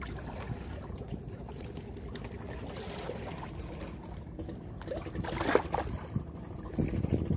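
Steady low rumble of wind and sea water at a rocky shoreline, with a brief louder rustle about five seconds in and a couple of low knocks near the end.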